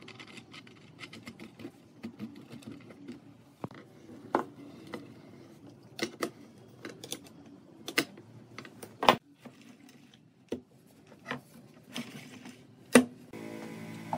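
Irregular metal clicks and clinks of an adjustable wrench turning the nut on a bolt through a wooden wheelbarrow's wheel axle and handle beams, mixed with occasional knocks. The loudest knocks come about nine and thirteen seconds in. Music starts near the end.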